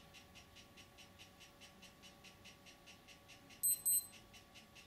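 Hobbyking 3D pen's filament drive motor running with a steady whine and a fast, even ticking, about six ticks a second, as it feeds ABS filament into a seam weld. A little after halfway come two short, high beeps, the loudest sound.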